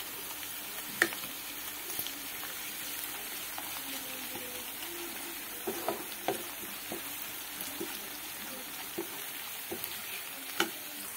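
Sliced onions and ginger-garlic paste sizzling in hot oil in a kadhai, frying steadily. A few sharp clicks and knocks of stirring against the pan, the loudest about a second in and near the end.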